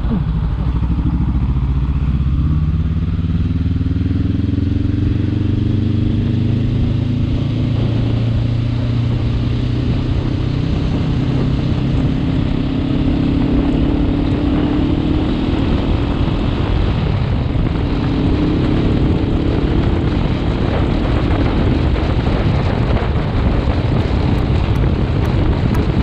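Honda CBR500 motorcycle's parallel-twin engine running under way, its note climbing in pitch a few times as the bike picks up speed through the gears, with wind rushing over the microphone.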